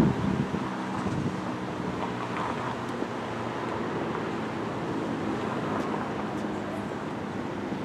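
A steady low engine hum, such as a vehicle idling, with wind noise on the microphone.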